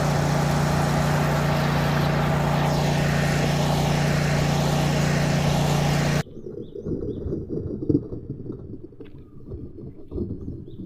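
Steady, loud motor hum of a radio-controlled excavator running, which cuts off abruptly about six seconds in. After it comes quieter outdoor sound with birds chirping and a few light knocks.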